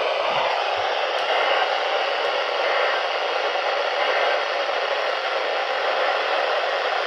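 Steady hiss of radio static from a weather-radio receiver, with no voice on the channel.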